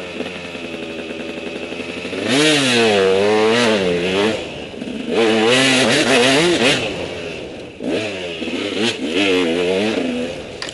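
KTM 200 EXC two-stroke enduro motorcycle running at low revs, then pulling away hard about two seconds in. The revs rise and fall several times as it is ridden through tight trail turns.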